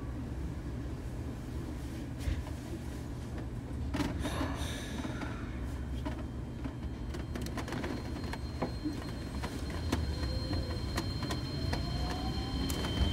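Cabin sound of an Osaka Monorail 2000-series train: a steady low rumble with scattered clicks and knocks. Near the end a faint motor tone rises in pitch, with a steady high whine above it.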